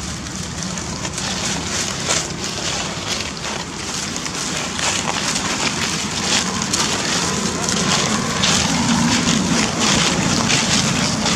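Dry fallen leaves crunching and rustling underfoot in quick, irregular crackles as footsteps move through thick leaf litter, over a steady low rumble of wind on the microphone.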